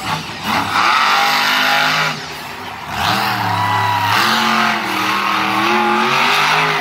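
Monster truck's supercharged V8 engine revving hard in two long bursts, the second starting about three seconds in and lasting longer, as the truck drives across the dirt and lifts onto its rear wheels.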